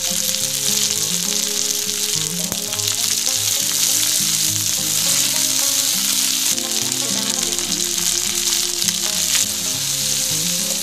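Grasshoppers and green chillies sizzling steadily as they fry in hot mustard oil in an iron kadai, being stirred with a spatula. Background music plays underneath.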